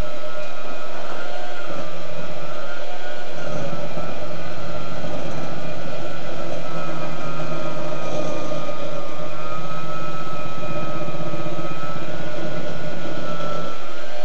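Electric hand mixer running steadily, its beaters turning in a bowl of batter; the motor's whine wavers slightly in pitch.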